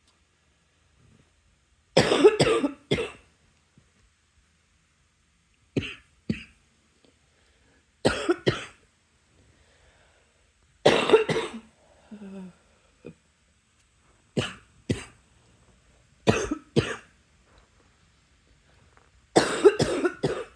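A person coughing in short fits of one to four coughs, a new fit every few seconds, with quiet gaps between.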